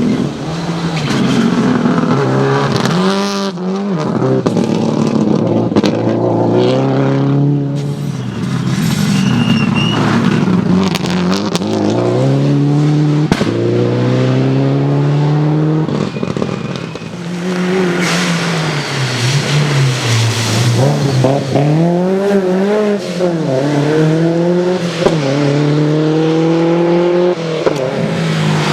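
Subaru Impreza rally car's turbocharged flat-four engine revving hard, its pitch climbing and dropping again and again through gear changes and lifts, with bursts of tyre and gravel noise.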